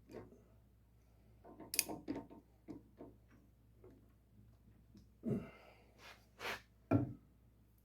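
Scattered light clicks and taps from motorcycle rear-suspension parts being handled and fitted, with a few louder knocks near the end.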